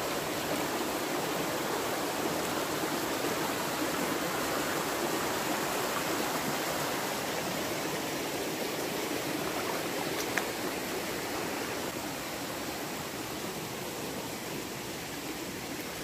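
River water running with a steady rushing noise, and a faint click about ten seconds in.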